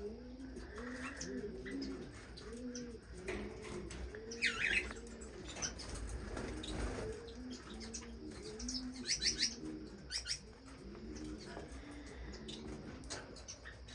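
Aviary birds calling: an unbroken run of low, repeated cooing calls, with short high chirps of finches now and then, a cluster about four seconds in and another near nine seconds.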